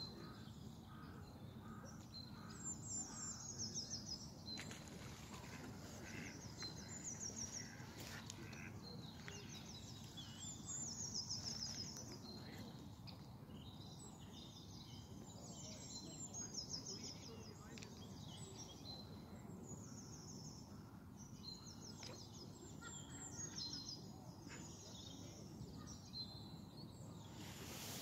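Small songbirds singing: short, high, trilling phrases repeated every few seconds over steady low background noise.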